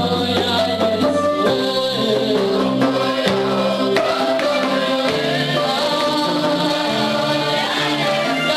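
Gospel worship song: a lead singer and a group of backing singers singing together over a steady instrumental accompaniment.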